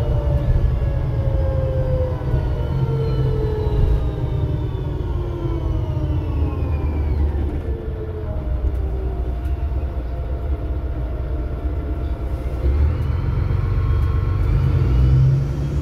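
VDL DB250LF double-decker bus heard from the upper deck: a steady low engine rumble, with a tuneful whine that falls in pitch over the first half as the bus slows, then rises again near the end as it pulls away.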